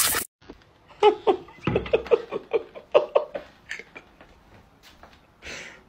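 A garden hose spray hissing, cut off suddenly at the very start. Then a French bulldog whining in a string of short, wavering whimpers.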